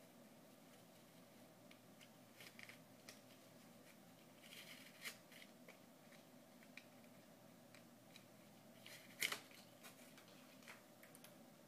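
Faint handling noises: cloth rustling and small scrapes and clicks as black fabric gear is moved around and put into a cardboard box, with one sharper knock about nine seconds in, over a faint room hum.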